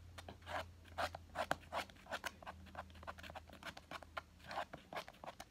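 Sticky, foamy slime mixture topped with shaving foam being kneaded and pulled apart by hand: quick, irregular wet clicks and squelches, several a second. The mixture is still too soft and sticky to set.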